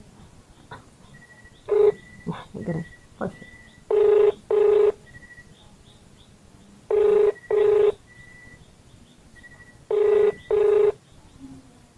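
Phone ringback tone through a phone's loudspeaker while an outgoing call waits to be answered: a double ring that repeats about every three seconds.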